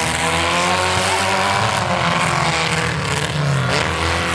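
Several demolition derby compact cars' engines revving, their pitches rising and falling over one another.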